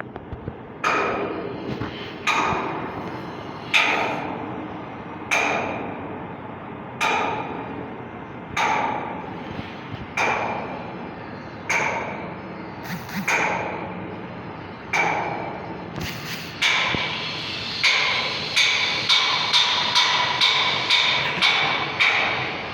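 Hammer striking metal, each blow followed by a short metallic ring. The blows are slow and even, about one every second and a half, then come faster, about two a second, in the last several seconds.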